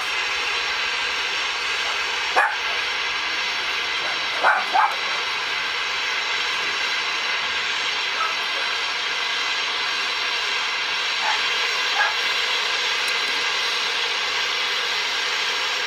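Gas torch flame hissing steadily while heating a joint for brazing on a steel blade. A few short sharp sounds cut through it, once about two seconds in, twice in quick succession near the middle of the first third, and faintly twice more later.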